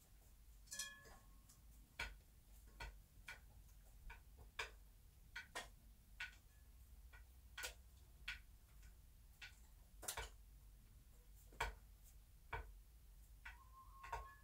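Bantam hen settled in a nest of dry grass and clover: faint, irregular small clicks and crackles from the nest material, one or two a second. A short soft call comes about a second in and a longer one near the end.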